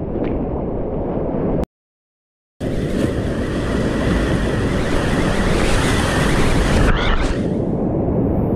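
Whitewater of a river in spate rushing and crashing right at the microphone, with spray splashing over it. The sound cuts out completely for about a second, about two seconds in, then comes back with a brighter hiss of spray that eases off near the end.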